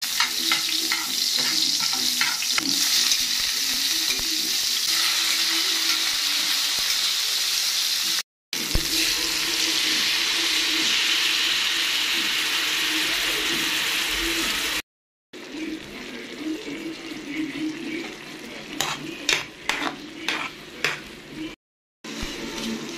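Hot oil sizzling in a metal pan as a metal spatula stirs and scrapes. This is followed by a louder steady sizzling hiss as coconut milk is poured into the hot pan, then a quieter bubbling simmer with scattered sharp clicks near the end. The sound cuts out briefly twice.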